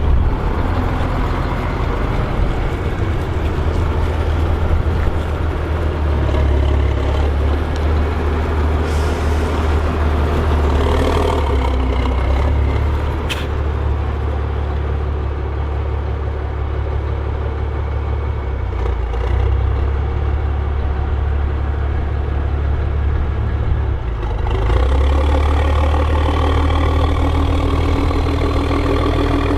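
Case IH 1455 XL tractor's six-cylinder diesel engine running steadily, its note changing about three-quarters of the way through.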